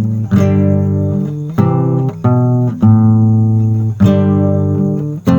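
Instrumental music: a guitar playing a series of chords, each struck and left to ring, about six in a row with a new chord every second or so.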